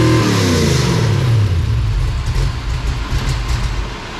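Chrysler 440 big-block V8 on an engine run stand, blipped high and then let off the throttle. The revs fall back over about a second and a half, then it settles to a rough idle through open headers and short mufflers during its break-in run.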